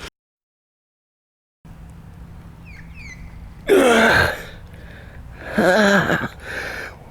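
The audio cuts out completely for about a second and a half, then a man lets out two loud, breathy groans of dismay, each falling in pitch, about two seconds apart.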